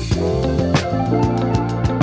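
Background music: sustained instrumental notes over a steady drum beat.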